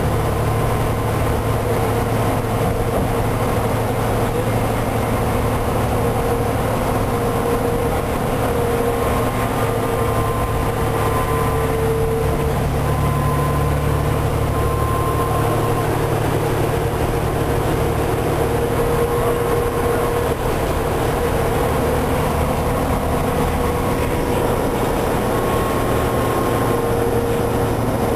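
Interior drone of a 2006 New Flyer D40LF transit bus under way: its Cummins ISL inline-six diesel and ZF six-speed automatic transmission running steadily, with road and rattle noise in the passenger cabin. A faint whine sits above the low engine drone throughout.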